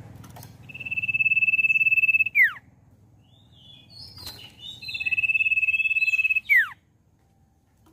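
Common iora (cipoh) whistling: two long, steady, high whistles of about a second and a half each, each ending in a quick downward slur. Between them come a few short chirps and a brief flutter.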